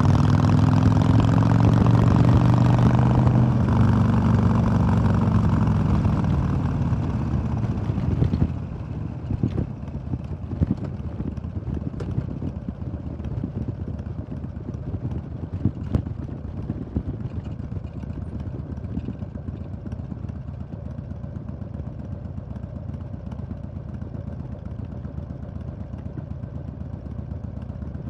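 2005 Harley-Davidson Sportster XL1200R's 1200 cc V-twin engine running loud, its pitch easing down over the first several seconds. About eight seconds in it drops to a quieter low rumble with scattered clicks and knocks.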